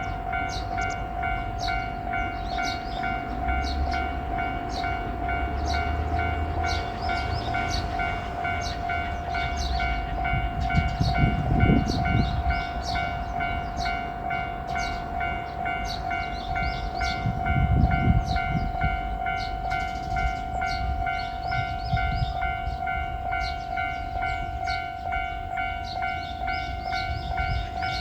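Japanese level crossing warning bell ringing on and on with a rapidly repeating electronic ding, over the low rumble of a passing diesel railcar, which grows loudest about eleven seconds in and again around eighteen seconds.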